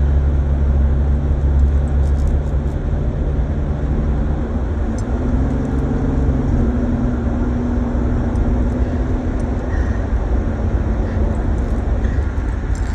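Car driving, heard from inside the cabin: a steady low road and engine rumble, with the engine hum changing pitch about four to five seconds in.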